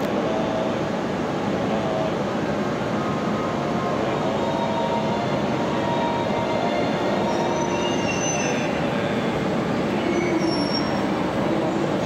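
Shinkansen train running slowly at the platform just after uncoupling, a steady rumbling train noise. Brief, thin high-pitched squeals come in past the middle and again toward the end.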